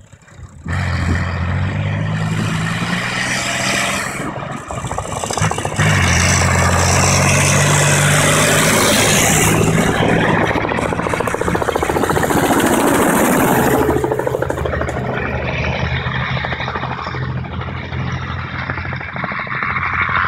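A BVP tracked infantry fighting vehicle's diesel engine running with a low, steady drone, starting about a second in. From about halfway through, a light helicopter flying low adds its rotor and engine noise.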